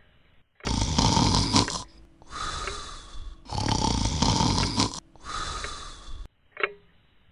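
Snoring sound effect: two snores, each a loud drawn-in breath followed by a quieter out-breath, then a short click near the end.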